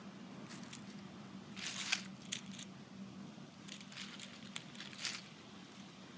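Dry fallen leaves crinkling and crunching in short bursts as an eastern gray squirrel moves about and feeds among them, loudest about two seconds in, over a faint steady low hum.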